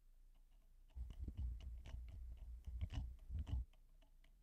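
Lead screw of a Mate DynoGrip self-centering vise being turned counterclockwise with a 12 mm speed wrench, backing the jaws off their calibration pins. It gives a faint low rumble with many light clicks, starting about a second in and stopping about a second before the end.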